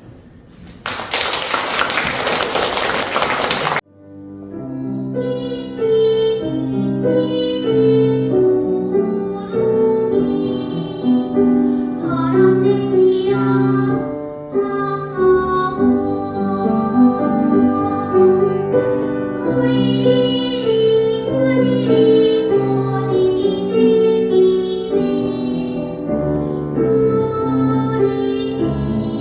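A child singer performing a classical song with piano accompaniment. Before the singing begins, the opening seconds hold a loud, even rushing noise that cuts off abruptly.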